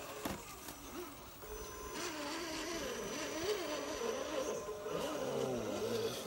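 Electric motors and geartrains of scale RC rock crawlers whining as they creep over rock. The pitch wavers up and down with the throttle, and the whine grows louder from about a second and a half in.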